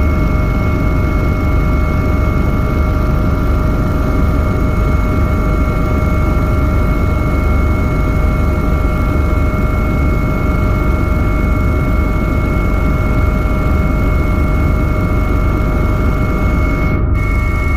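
Steady mechanical drone: a constant low rumble with several unchanging whining tones over it, like engine or cabin noise, with no change in pace.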